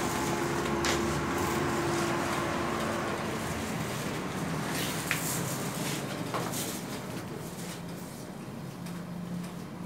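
Hyundai Luxen service elevator running, heard from inside the car: a steady hum and rumble, with a steady tone that stops about three seconds in and a few light clicks.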